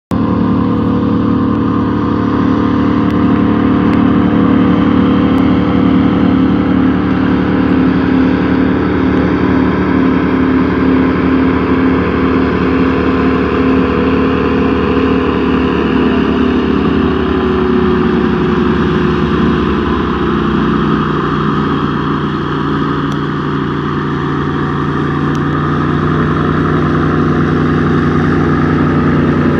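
Airboat's 383 big-block V8 and propeller running steadily at speed, a continuous engine drone. Its pitch drops and settles lower about two-thirds of the way through as the engine eases off.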